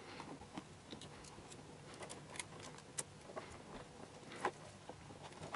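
Faint scattered clicks and ticks of hard plastic being pushed and worked by hand, with a couple of sharper clicks about three and four and a half seconds in, as the plastic mounting ring of an Antec Kühler H2O 920 is forced onto the pump head.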